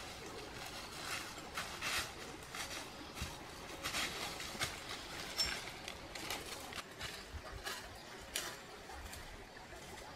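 Footsteps crunching and rustling through dry leaf litter, irregular crackling steps down a slope.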